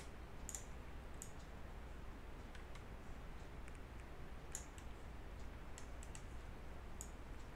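Faint, scattered clicks of a computer mouse, about seven over several seconds, over a low steady hum.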